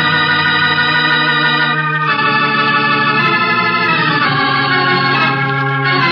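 Organ music: sustained chords held on the organ, the chords changing about two seconds in and again about four seconds in.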